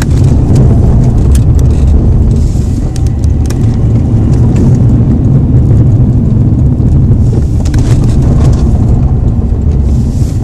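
Cabin noise of an Alfa Romeo 159 1.9 JTDm four-cylinder turbodiesel driven hard through bends: a loud, steady low drone of engine and road, with frequent light clicks and rattles over it.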